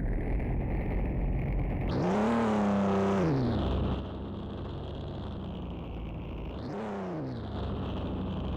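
Chevrolet Omega's engine idling, then revved twice: once held for about a second and a half, then a short blip near the end, each time dropping back to idle.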